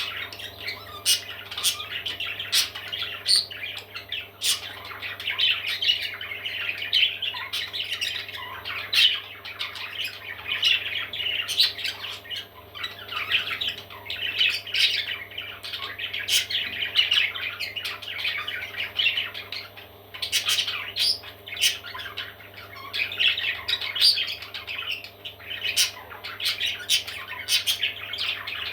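Parrot chicks squawking and chattering continuously, with sharp clicks scattered through, over a steady low hum.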